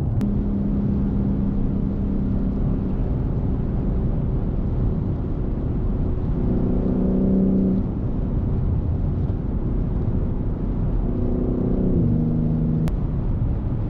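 Car driving at speed: steady road and wind rumble with an engine drone that swells three times and drops in pitch once near the end.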